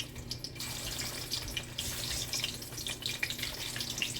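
Plantain slices frying in hot oil: a steady sizzle with many small crackles, fuller from about half a second in.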